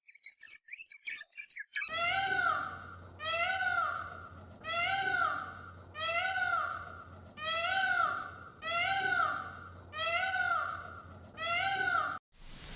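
A kitten meowing over and over: eight even meows, each rising then falling in pitch, about one every second and a quarter. Before the meows start, there are about two seconds of quick, high bird chirps.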